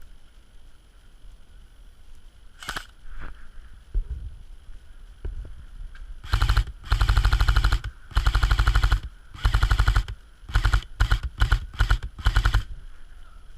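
Airsoft rifle firing in rapid full-auto bursts. There is one short burst a few seconds in, then three longer bursts, then a string of short bursts near the end.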